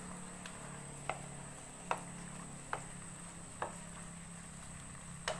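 A spatula stirring chopped vegetables in a metal kadai, clicking sharply against the pan about five times at a rough once-a-second beat.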